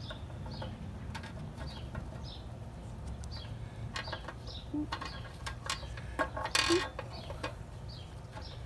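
Small clicks and taps of engine parts being handled by gloved hands, while a bird chirps repeatedly, about once or twice a second, over a steady low wind rumble. A short, louder rustle comes past the middle.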